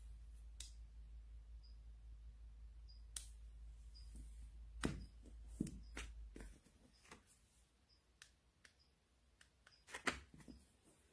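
Light plastic clicks and taps as small plastic LED light bars are handled, picked up and set down, with a sharper double knock near the end. A low hum underneath stops a little past halfway.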